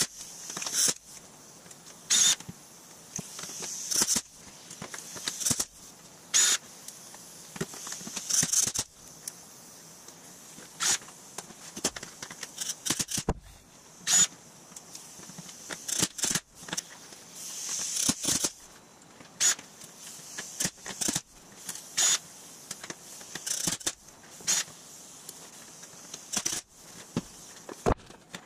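A homemade pneumatic rivet gun hammering small aluminum rivets into aluminum panels against a backing bar, in short bursts every second or two. Among them a cordless drill runs in brief spurts.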